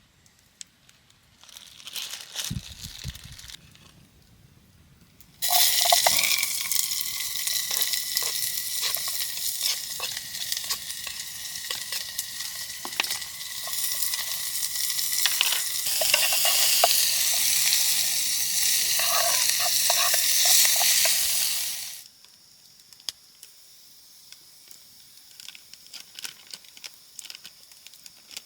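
Loud sizzling hiss with crackles, like food frying in a hot pan. It starts suddenly about five seconds in and stops abruptly about six seconds before the end, with a few faint scrapes and knocks before it.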